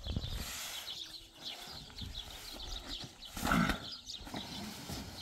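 Heavy sacks of cement being handled off a pickup's tailgate onto a pile, with a dull thump about three and a half seconds in. Faint high chirping throughout.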